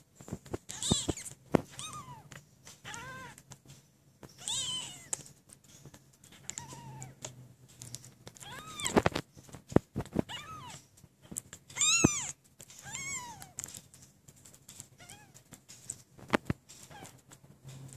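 A very young kitten mewing over and over: about a dozen short, high-pitched cries, each rising and then falling in pitch, the loudest around the middle and about two-thirds of the way through. Faint clicks come between the cries.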